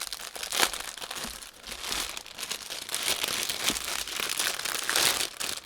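Plastic bags of diamond-painting drills crinkling and rustling as they are handled and sorted by hand, with many short crackles.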